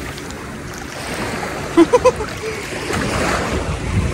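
Wind on the microphone over seawater washing along the shore, a steady rushing noise. About two seconds in, three short, loud pitched blips stand out above it.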